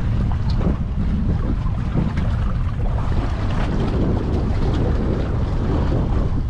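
Wind buffeting the microphone on a boat at sea, over a steady low rumble of the boat and the water.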